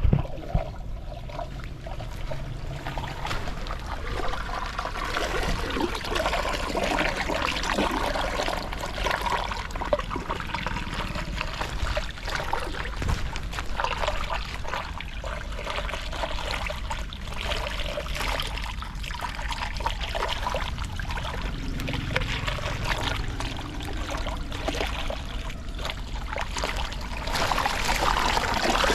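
Water pouring and trickling steadily, with occasional light knocks.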